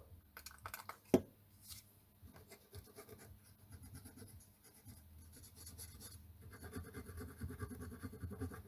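Faint scrubbing and scratching on a circuit board, cleaning flux residue off freshly soldered IC pins, growing busier in the second half. There is one sharp tap about a second in.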